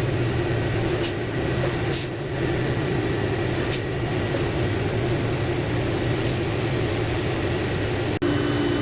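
Steady mechanical hum of a running fan or air-conditioning unit, with four light clicks.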